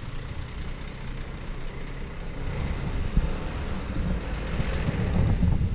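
Wind rumbling on an action camera's microphone while riding a Yamaha NMAX scooter, with the scooter's engine running underneath. The rumble grows louder over the last few seconds.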